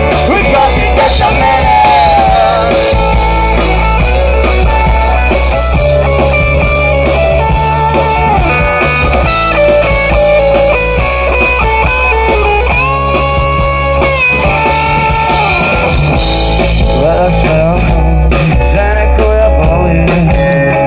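Live rock band playing loudly: electric guitars and drums, with a lead line of held notes that bend and slide over the top.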